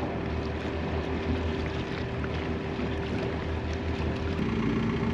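Sailing yacht's engine running at a steady pace as the boat motors slowly through a mooring field. The steady hum switches abruptly to a lower note near the end.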